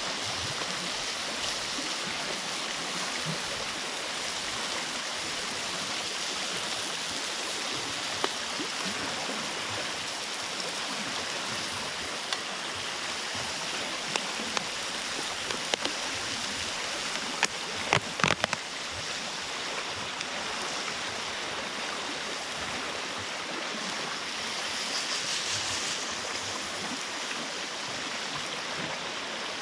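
Steady rush of flowing water from a stream, with a few sharp clicks a little past halfway.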